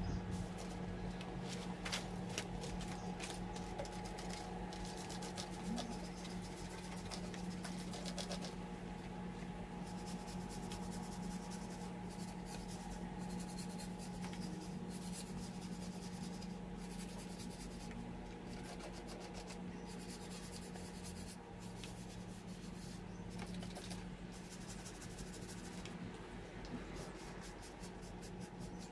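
Hand scrubbing inside a degreased cast-iron LM7 5.3L V8 engine block: irregular rasping strokes of a brush on the metal, over a steady low hum.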